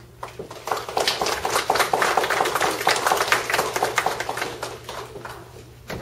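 A small audience applauding: many separate claps that build up about half a second in and die away near the end.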